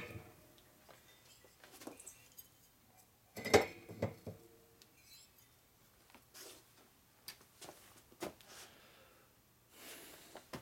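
Metal engine parts clinking and knocking as they are handled on the bench: a sharp cluster of clanks about three and a half seconds in, then a few light taps and clicks.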